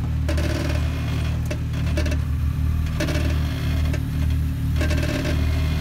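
Jeep Wrangler Rubicon's engine running at low, steady revs as the Jeep crawls over rock.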